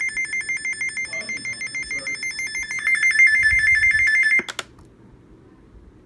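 Weather alert radio's electronic alarm: a rapid warble of two alternating high beeps, about five pulses a second, growing louder about three seconds in. It cuts off with a click about four and a half seconds in. The alarm signals that a severe thunderstorm warning is being received.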